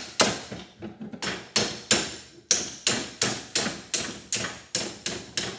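Hammer striking a small transformer's steel core held in a bench vise: a fast, steady run of metal-on-metal blows, about three a second, each with a brief high ring. The blows are knocking the laminated steel plates apart to free the copper winding.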